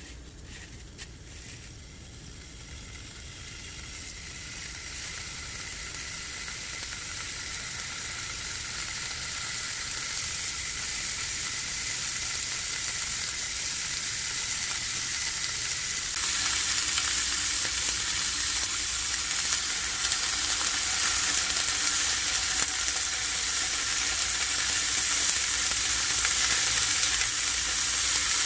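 Food frying in a pan, an even sizzle that grows steadily louder and steps up suddenly about sixteen seconds in.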